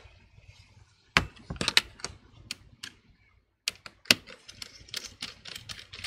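Irregular sharp clicks and taps of small metal screws and the laptop hinge bracket being handled on an opened laptop, as the hinge screws are taken out and the hinge is worked loose. The loudest clicks come just over a second in and about four seconds in.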